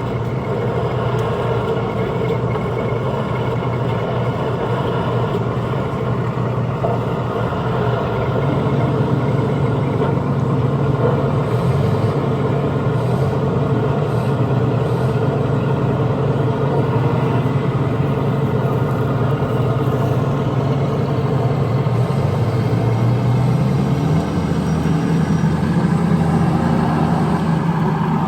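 Vehicle engine sound running steadily, its pitch stepping up about 24 seconds in.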